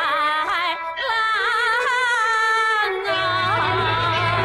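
Huangmei opera singing: a solo voice with wide vibrato, holding a long note in the middle, over instrumental accompaniment that fills out with a low bass line about three seconds in.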